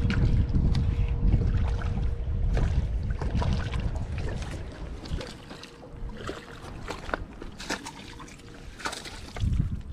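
Handling noise from a spinning rod and reel while a hooked crappie is reeled in and landed. A low wind rumble on the microphone fades after about four seconds. Scattered sharp clicks and knocks run through the whole stretch.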